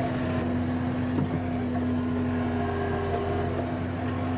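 John Deere compact tractor's diesel engine running at a steady speed, an even hum that holds one pitch throughout.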